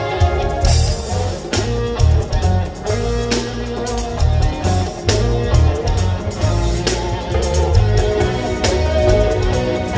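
Live band playing an instrumental passage: electric guitar lines over a pulsing bass guitar and drums.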